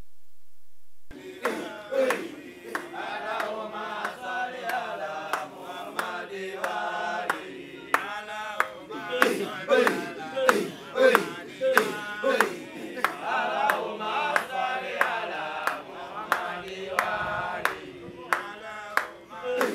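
A group of men's voices sings a chant together, with sharp percussive strikes keeping a beat at about two a second. It starts abruptly about a second in.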